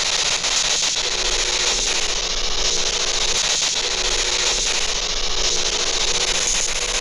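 Handheld spirit box radio sweeping through stations: a loud, steady hiss of radio static with faint clicks as it steps, and a low steady tone that comes in about a second in and drops out for a moment in the middle.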